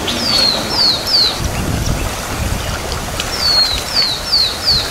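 A bird calling: short whistled notes that each fall in pitch, three in quick succession near the start and four more in the second half, over a steady low rumble.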